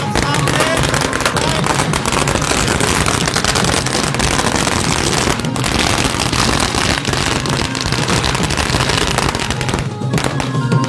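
A long string of firecrackers going off on the road in a rapid, continuous crackle of bangs, stopping about a second before the end.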